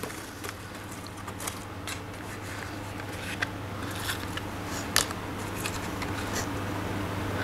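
Paper wrapping and shredded-paper packing rustling and crackling as a potted orchid is unwrapped by hand, with a handful of sharp crinkles spread through, over a steady low hum.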